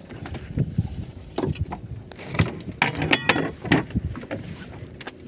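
Irregular knocks and thuds of a large gaffed fish and a metal gaff hook against a boat deck. A brief metallic clink comes about three seconds in.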